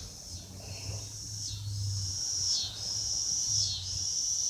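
Insects chirping in a steady, high-pitched chorus that dips briefly about once a second.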